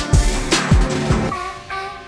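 Background music: a beat with deep booming kick drums and sharp snare or hi-hat hits, which drops out about a second and a half in, leaving a held melody.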